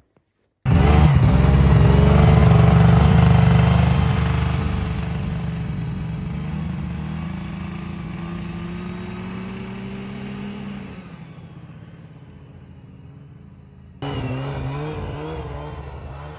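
Snowmobile engine running, starting abruptly about a second in and fading steadily as the machine moves away. Just before the end the engine sound jumps louder again and fades once more.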